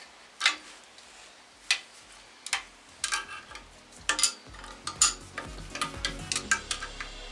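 Scattered metallic clicks and clinks of hand tools on bolts and nuts as engine-stand mounting hardware is tightened. Background music comes in about halfway through.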